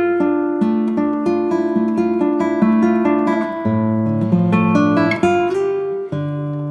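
Background music: plucked acoustic guitar playing a steady pattern of notes.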